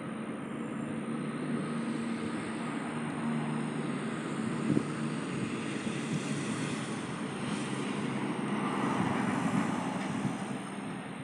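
Aircraft engine noise from the runway, a steady rush with a low hum beneath, swelling to its loudest about nine seconds in and then easing off.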